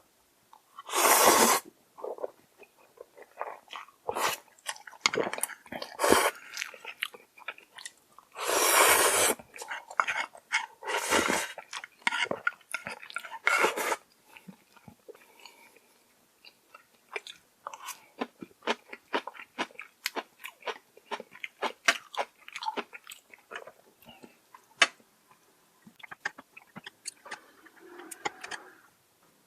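A person chewing and crunching food close to the microphone. There are a few louder noisy bursts of about half a second in the first half, then a dense run of small sharp clicks.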